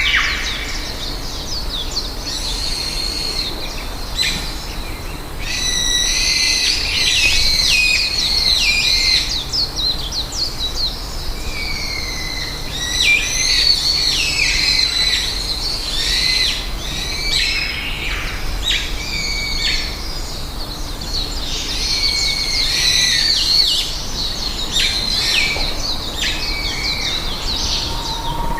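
Several small birds chirping and trilling, many short high-pitched calls overlapping, busiest in three spells, over a steady low background noise.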